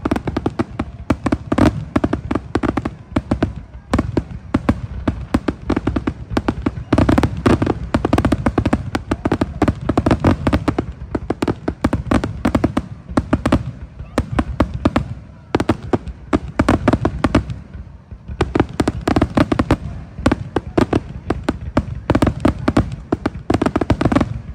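Aerial firework shells bursting and crackling in quick succession, many sharp reports a second, with a couple of short lulls partway through.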